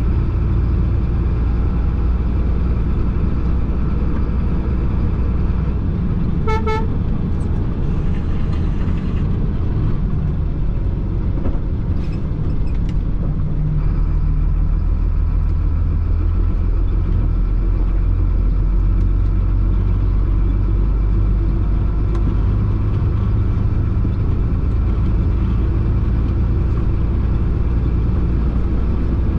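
Concrete mixer truck's diesel engine running steadily as it drives, with a brief horn toot about six and a half seconds in.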